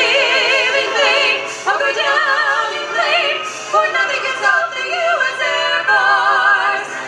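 Music with a solo voice singing in an operatic style, long notes held with a wide vibrato.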